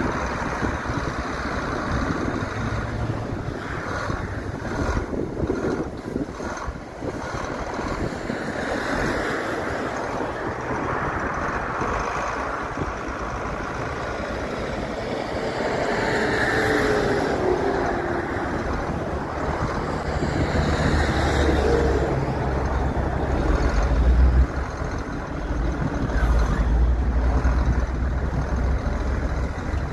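The diesel engine of a John Deere 8760 articulated four-wheel-drive tractor running steadily as the tractor drives slowly. Gusts of wind rumble on the microphone, stronger in the second half.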